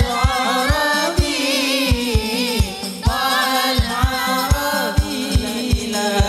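Hadrah ensemble performing sholawat: a group of voices singing an Arabic devotional song in chorus over hand-struck frame drums, with deep bass drum strokes about two to three a second.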